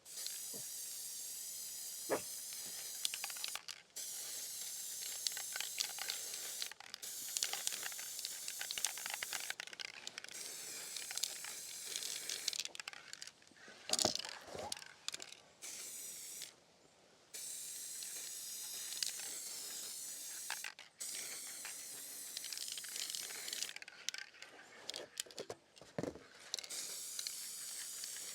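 Aerosol spray-paint can hissing in bursts of several seconds each, with short breaks between them and a few sharp clicks, as black paint is touched up over spots the first coat missed.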